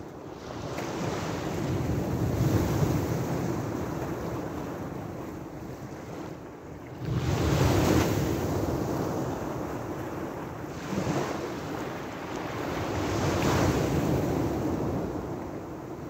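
Small sea waves breaking and washing up a pebble beach, splashing against shoreline rocks. They come in surges: a swell in the first few seconds, a sharper break about seven seconds in, then smaller ones near eleven and fourteen seconds.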